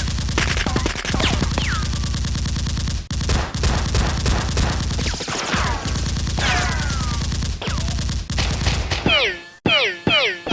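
Rapid automatic gunfire, a dense unbroken stream of shots with a short break about three seconds in. Near the end it turns to separate shots, each followed by a falling whistle.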